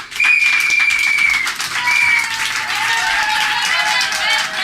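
Audience applauding, with a long shrill whistle at the start, a shorter whistle about two seconds in, and whooping cheers near the end.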